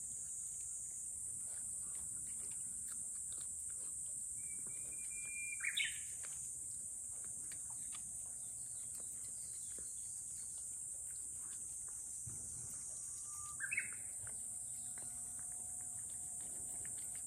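A steady high-pitched insect drone, with a songbird singing twice about eight seconds apart, each song a long held whistle ending in a quick rising flourish.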